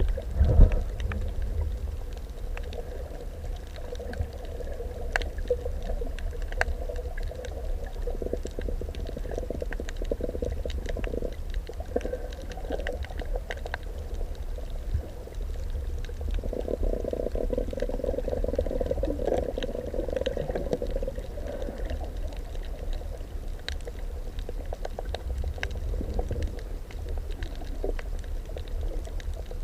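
Underwater ambience as picked up by a camera in the sea: a steady low rumble of moving water with scattered sharp clicks and crackles, and a murky hum that swells for a few seconds in the middle.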